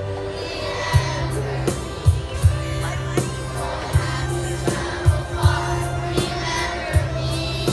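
Children's choir singing with amplified backing music: a steady bass line under a drum beat.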